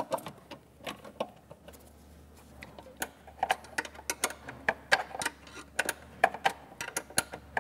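Irregular clicks and taps of hand tools and parts as a cone air filter and airflow meter assembly is fitted and tightened in the engine bay.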